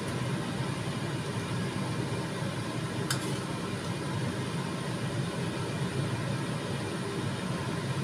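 A steady low kitchen rumble, with one light metallic clink of a ladle against the dish about three seconds in as fish in tomato sauce is served from the wok.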